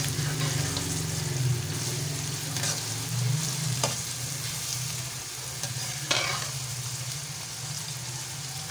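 Sliced onions and ginger-garlic paste sizzling steadily in mustard oil in a steel pan, stirred with a slotted metal spatula that knocks and scrapes against the pan a few times.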